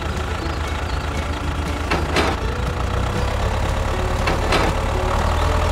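Steady tractor engine rumble for a miniature DIY tractor, with a faint high motor whine over it; two short noisy bursts break in, about two seconds and four and a half seconds in.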